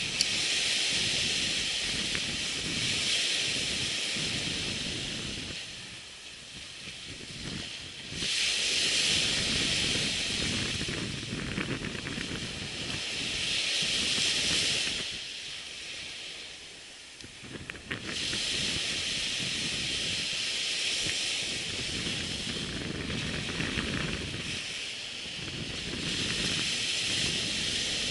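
Surf washing on the beach, a hissing rush that swells and fades every few seconds, with wind.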